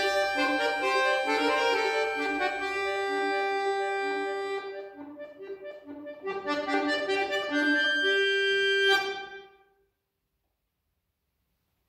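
Chromatic button accordion playing held chords and a melody, growing softer for a couple of seconds midway and then louder again. It ends on a sharply struck final chord about nine seconds in and stops, leaving silence.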